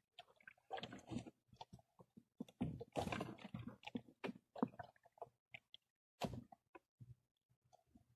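Irregular handling noises from a person working fishing line and bait in a wooden boat: short knocks, clicks and crackly scrapes with gaps between them, and one sharper knock about six seconds in.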